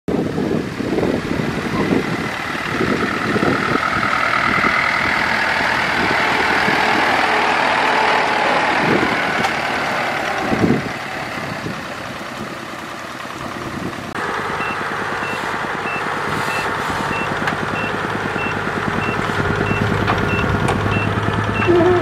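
A truck loaded with a rice combine harvester drives past on a rough dirt road, its engine running amid knocks and rattles. After about fourteen seconds a steady engine hum carries a high reversing alarm beeping about twice a second.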